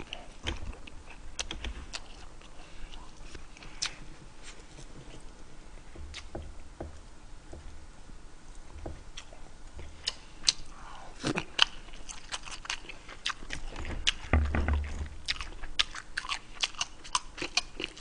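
A person chewing and biting food close to the microphone, eating deep-fried pork cutlet (tonkatsu): many short chewing clicks, coming thicker in the second half.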